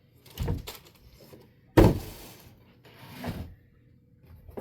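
Cardboard shipping box and packing pieces being handled: three knocks and thuds, the loudest a sharp thud a little under two seconds in.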